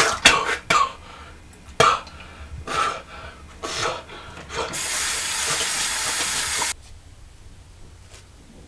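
Several sharp knocks and clatters of items handled on a kitchen counter, then a tap running into a sink with a steady hiss for about two seconds that stops abruptly.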